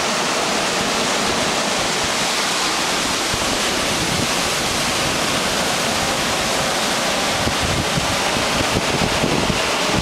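Ocean surf washing steadily onto the shore, with wind rumbling on the microphone, more so in the last few seconds.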